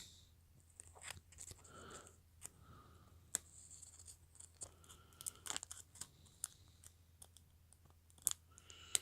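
Trading cards being handled: faint, scattered clicks, taps and rustles of card stock and plastic, with a few sharper clicks.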